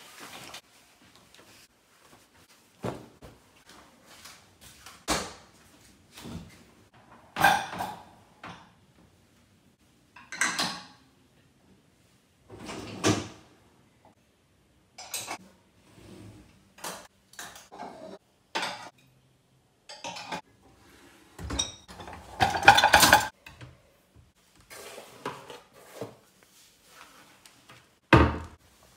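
Dishes and cutlery clinking and clattering as a dishwasher is unloaded, in separate knocks and clatters every second or two, the loudest cluster about 23 seconds in. A low thud near the end.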